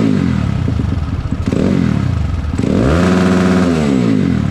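Motorcycle engine being revved against the rev limiter of an aftermarket Nibbi Racing CDI: the note drops back to idle, gives a short blip, then shoots up and holds flat at the limit for about a second before falling back near the end.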